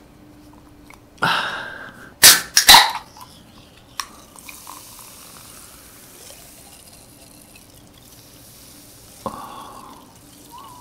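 A few sharp knocks and a short hiss in the first three seconds, then cola poured from a can into a young coconut, fizzing softly, with a second short burst of pouring near the end.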